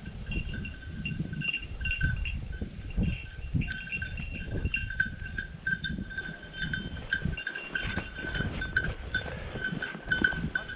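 Hunting dog's bell ringing in an irregular jingle as the dog quests through the cover, over the crunch and swish of footsteps through dry bracken.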